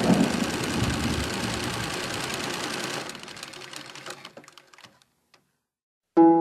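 Thunderstorm sound effect with a dense rumbling hiss fading away over about five seconds and breaking into scattered crackles before going silent. Plucked, harp-like notes begin near the end.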